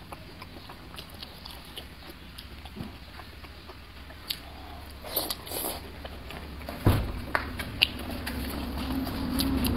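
Close-miked eating of wide, oily spicy noodle sheets: wet chewing and mouth sounds with scattered sharp clicks, and a loud low thump about seven seconds in.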